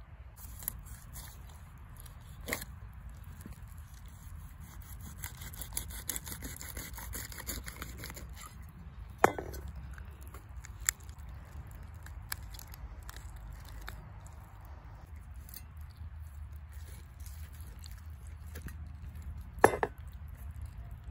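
Hands handling and tearing apart raw stone bass pieces on a wooden cutting board: soft tearing and rustling with scattered sharp knocks, the loudest about nine seconds in and again near the end, over a low steady background rumble.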